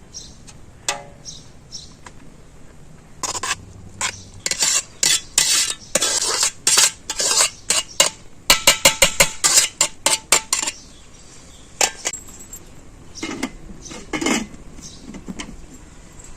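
Metal utensils clinking and scraping against pots and dishes in a run of quick, irregular strikes, densest just before they stop about two-thirds of the way in.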